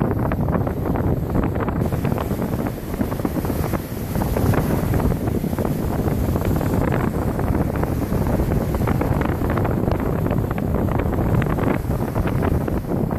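Strong wind buffeting the microphone: a loud, steady low rumble with constant gusty flutter, easing briefly a few seconds in.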